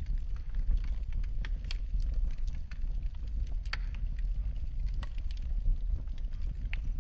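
Wood fire burning in a fireplace, with a steady low rumble and irregular sharp crackles and pops, the loudest a little under four seconds in.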